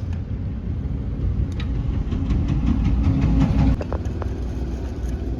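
Motorcycle engine running with a low rumble, louder for about a second and a half in the middle before dropping back suddenly.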